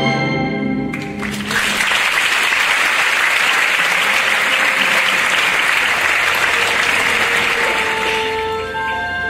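Orchestral ballet music ends about a second in and audience applause follows for about seven seconds. Soft music starts again near the end.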